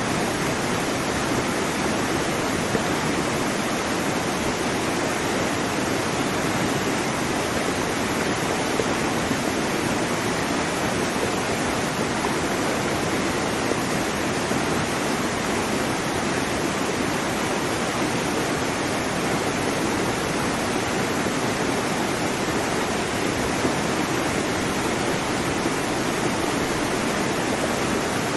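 Waterfall: water falling and crashing in a steady, dense rush.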